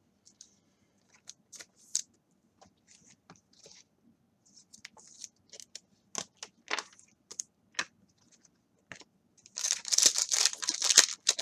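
Trading cards handled by hand, giving scattered soft clicks and ticks as they are slid and stacked. Near the end comes a dense crinkling rip as the wrapper of a 2016 Donruss Optic baseball card pack is torn open.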